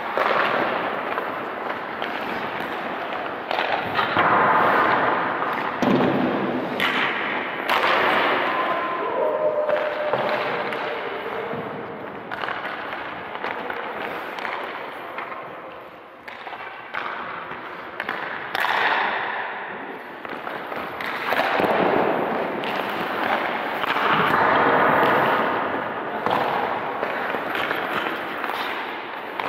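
Ice hockey goalie drill: repeated sharp cracks of pucks and sticks over swells of skate blades scraping the ice, at irregular times.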